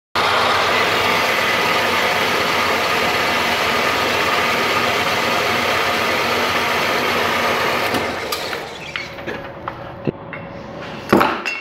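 Small metal-cutting bandsaw running steadily while cutting the metal end cap off a cardboard shipping tube. It stops about eight seconds in, and a few light clinks and knocks follow.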